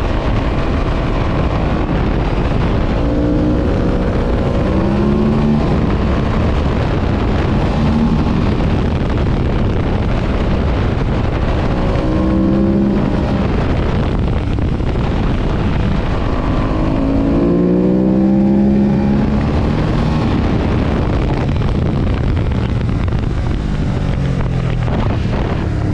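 Ducati Monster S4RS's L-twin engine accelerating hard, its pitch rising several times as it revs up through the gears, over a loud steady rush of wind noise.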